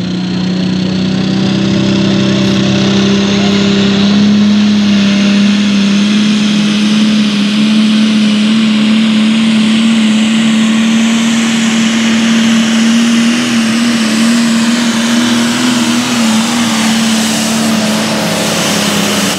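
Ford 8210 super stock pulling tractor's diesel engine running flat out under load as it drags the pulling sled, a loud, steady, high-revving tone that climbs slightly in pitch through the run.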